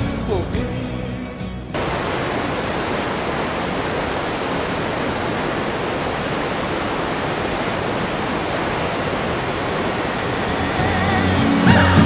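Yosemite Falls rushing: a steady, even noise of falling water that cuts in suddenly about two seconds in. Music fades out at the start and comes back in near the end.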